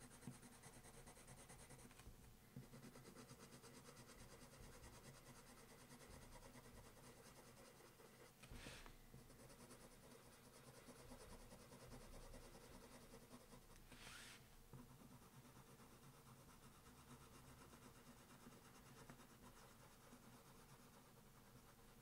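Faint scratching of a white coloured pencil worked over paper, blending and smoothing the coloured layers beneath, with two brief slightly louder strokes about eight and fourteen seconds in.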